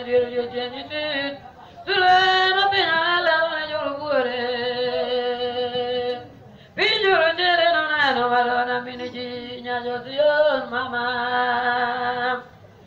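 Voices singing a slow chanted hymn of prayer, in long phrases of held and gliding notes with a short breath between phrases.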